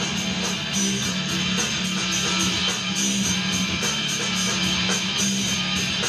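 Live rock band playing an instrumental passage: electric guitars strummed over a steady drum beat, with no singing.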